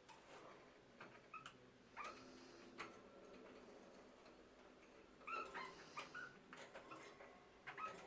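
Budgerigars chirping softly: short scattered chirps and a few clicks, busiest about five seconds in.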